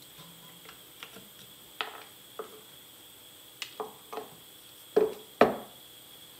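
A series of knocks and clunks from metal aerosol cans being handled and set down on a bench. Light knocks come first, and the two loudest come close together about five seconds in.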